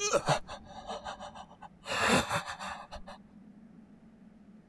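A person gasping in short, breathy bursts, the loudest gasp about two seconds in.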